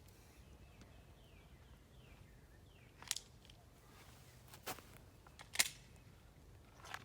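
Four faint, sharp clicks at uneven intervals, the third the loudest, over a quiet outdoor background.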